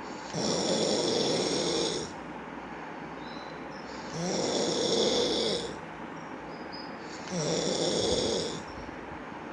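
Snoring: three long snores, each lasting about a second and a half, coming every three to four seconds with quieter breathing noise between them.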